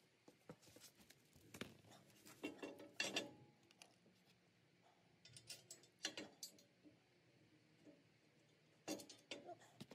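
Faint scattered clinks and knocks of a steel backhoe subframe rail being handled and fitted against the underside of a compact tractor, a few sharp ones about 1.5, 3, 6 and 9 seconds in, between stretches of near silence.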